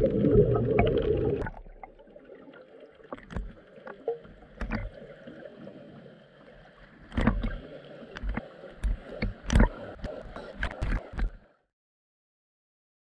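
Water heard through an underwater camera: a loud bubbling rumble, then after about a second and a half a quieter slosh of surface water with irregular slaps and knocks against the camera. The sound cuts off suddenly near the end.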